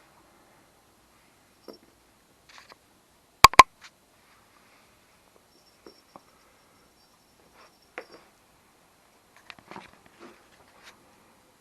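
A cat playing, making scattered light taps and knocks, with two loud sharp knocks in quick succession about three and a half seconds in.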